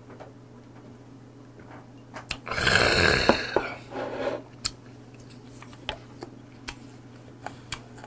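A man's loud, throaty exhale right after downing a shot of liquor, about two and a half seconds in and lasting about a second, followed by a shorter breath. Then come a few light clicks.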